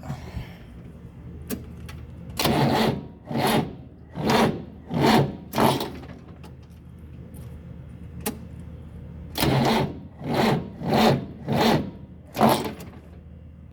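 New Holland tractor engine cranked twice by its starter motor, turning slowly with a heavy, labouring surge about every 0.7 seconds. It does not catch in either attempt. This is a hard-starting engine whose starter motor has a burnt armature.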